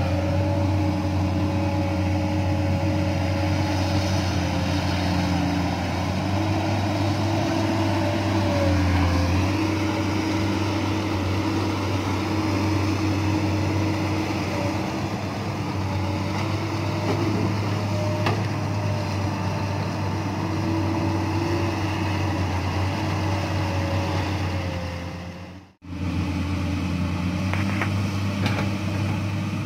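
Komatsu PC200 hydraulic excavators' six-cylinder diesel engines running steadily while digging, the engine note dipping and rising as the machine works. The sound cuts out for a moment near the end.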